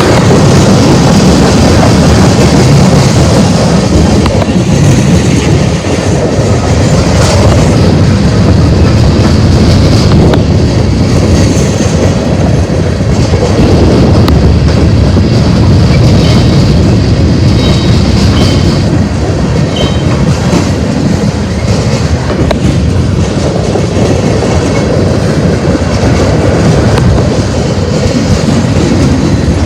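A loaded freight train's cars rolling past close by, the wheels running loud and steady on the rails.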